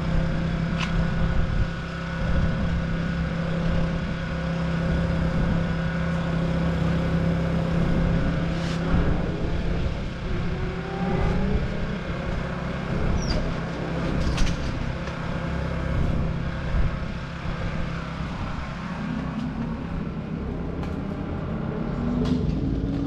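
Motorcycle engines running, a steady drone, with revs rising and falling from about ten seconds in and again near the end.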